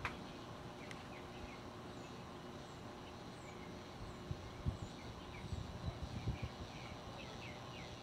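Moss Heirloom Olympus ceiling fan running with a faint steady hum, with a cluster of irregular low thumps in the second half. Short high chirps recur in the background.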